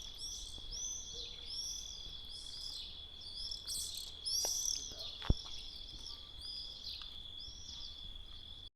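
Small birds chirping: many short, arched notes, a few each second, over a steady high thin tone. A single sharp click sounds about five seconds in, and everything cuts off suddenly near the end.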